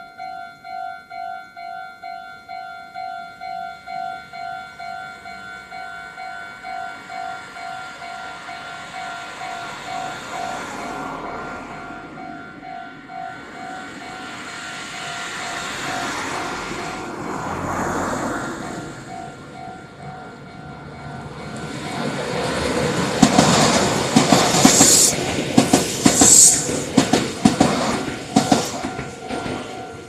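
Japanese railway level-crossing warning bell ringing at about two strikes a second, fading under the noise of a train that approaches and passes the crossing. The passing train is loudest near the end, with rapid clacking of wheels over rail joints and a couple of brief high wheel squeals.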